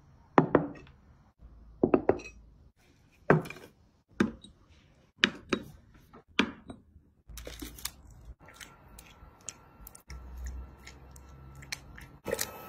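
Kitchen handling sounds of dishes and food being set down and worked: sharp knocks and clinks about once a second at first, then softer, denser clicks and rustling over a faint steady tone from just past halfway.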